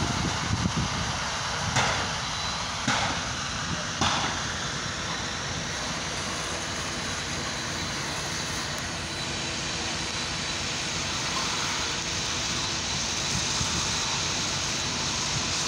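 Fire engines running steadily at a fire scene, a constant engine drone, with a few sharp knocks in the first four seconds.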